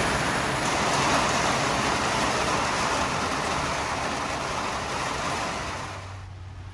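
Heavy rain pouring on a Dodge Ram van's roof and windshield, heard from inside the van as a loud, steady rushing hiss. It drops away suddenly about six seconds in, leaving a faint low hum.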